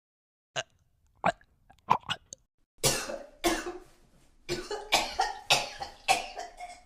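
A person coughing: a few short separate coughs, then from about three seconds in a rapid run of harsh coughs, roughly two a second.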